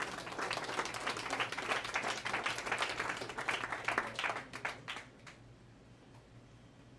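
A small audience applauding, dense clapping that thins out and dies away about five seconds in.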